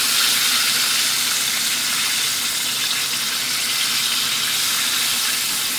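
Fish frying in hot oil: a loud, steady sizzle.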